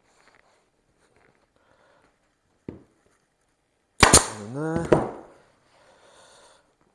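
Upholstery staple gun firing 6 mm staples into a motorcycle seat: two sharp shots in quick succession about four seconds in, the loudest sound, with a lighter click before them and another just after. A brief rising tone sounds between the shots.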